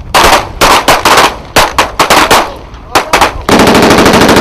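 Small-arms fire on a shooting range: a string of separate single and double shots, then about three and a half seconds in a long, rapid burst of automatic fire.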